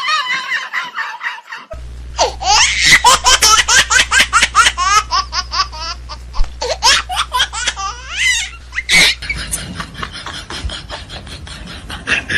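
A high-pitched cry trails off, then from about two seconds in comes a long run of high-pitched laughter in quick ha-ha pulses, with a low steady hum beneath it for a while.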